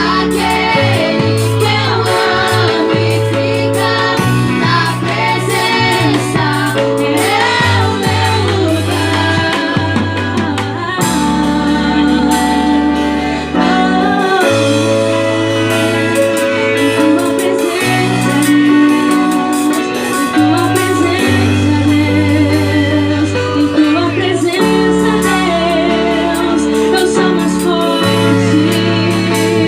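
Christian worship band playing a song with singing, over long held bass notes.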